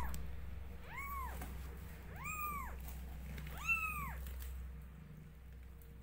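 Newborn kittens mewing: three high-pitched mews about a second apart, each rising and then falling in pitch, from kittens crowding to nurse.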